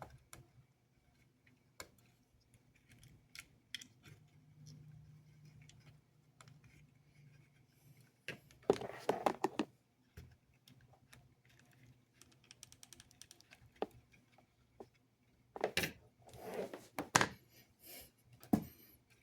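Small clicks, taps and light rattles of plastic model-locomotive parts and tools being handled, with two louder stretches of clattering rustle, about nine seconds in and again around sixteen to seventeen seconds.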